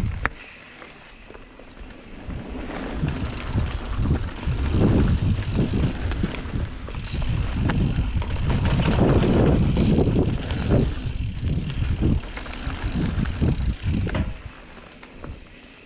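Mountain bike riding downhill on a dirt trail: tyres rolling and rattling over the dirt, with wind buffeting the microphone. It is louder and rougher through the middle and quieter near the start and end, with one sharp click just after it begins.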